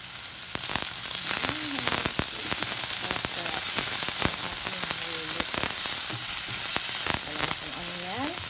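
Pork, garlic, onion and tomato sautéing in hot oil in a pan: a steady sizzle with frequent sharp pops and crackles.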